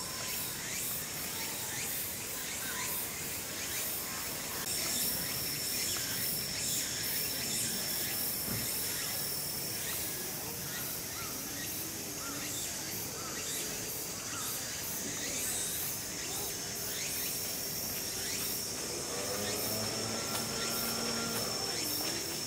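Outdoor chorus of singing insects: a steady high trill that drops out for a couple of seconds about ten seconds in, over rapid shrill pulsing.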